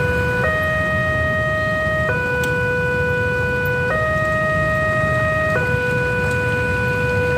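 Railway level-crossing warning alarm sounding two electronic tones in turn, high then low, each held about a second and a half. It warns that a train is approaching while the barrier is down.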